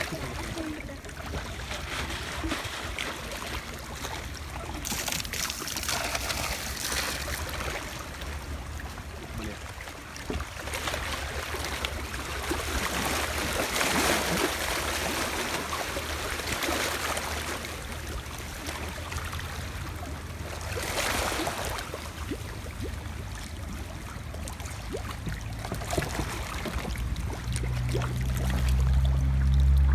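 Shallow seawater lapping and washing against the shore, swelling and fading every few seconds, over a steady low rumble that grows louder near the end.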